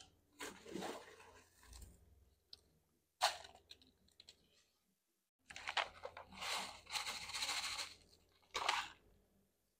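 Lechuza-Pon mineral granules rattling and crunching in a clear plastic cup as they are scooped and poured into a small plant pot: a few short scrapes, then a longer pour about two-thirds of the way in.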